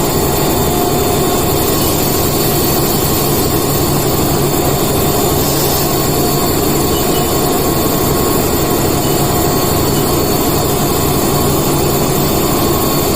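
Haas vertical CNC machining centre running a cut: a steady machine drone and hiss with faint high whining tones that hold level throughout.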